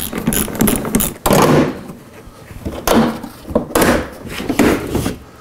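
Plastic rear bumper cover of a Toyota 4Runner being pulled and worked free of its clips: several irregular bursts of plastic knocks, clunks and scraping, the loudest about a second and a half in.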